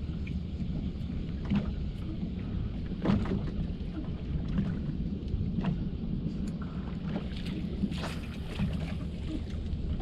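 Steady low rumble aboard a small fishing boat, with scattered short splashes and knocks, the strongest about three seconds in and near the end.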